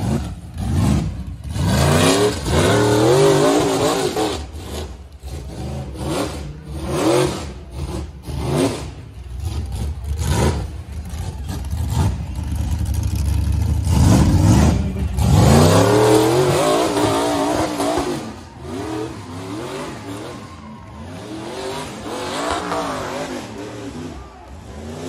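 A rock bouncer's engine revving hard in short repeated bursts as it claws up a steep rock climb, the pitch sweeping up and dropping away every second or so, with a longer, louder rev a little past halfway.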